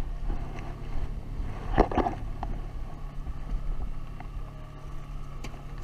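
A boat motor running steadily with a low, even hum. Handling noise from a camera and its clamp mount being adjusted, with a short bump about two seconds in.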